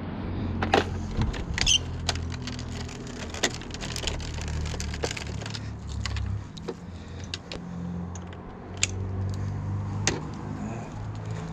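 Rummaging through discarded items by hand: scattered clicks, knocks and rattles of things being handled and moved, over a steady low hum.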